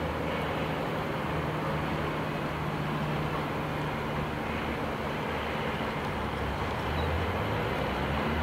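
Floatplane's propeller engine droning steadily, with a low hum under it.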